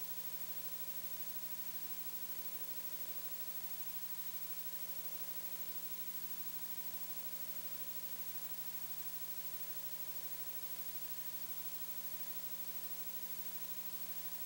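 Faint, steady hiss with a low electrical hum underneath, unchanging throughout: the background noise of the broadcast audio feed with no program sound on it.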